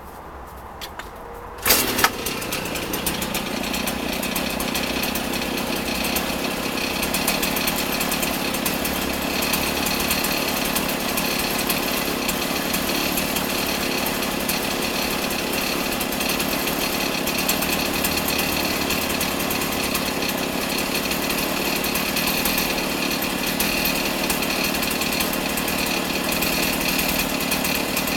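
Stihl MS 390 two-stroke chainsaw starting: it catches about two seconds in, after a few small knocks, then runs steadily without revving.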